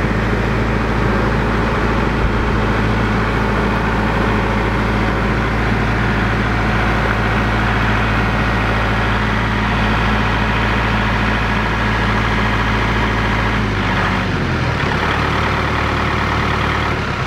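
RK compact tractor's diesel engine running steadily as the tractor drives up. About fourteen seconds in, the engine note drops as it is throttled down.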